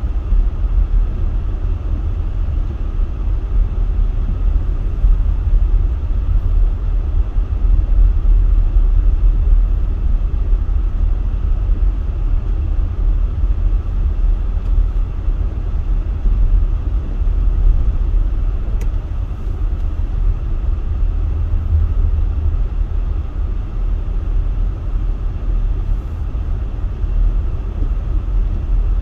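Car cabin while driving on a snowy road: a steady low rumble of engine and tyres, with the heater and defroster fan blowing hard to keep the windshield clear.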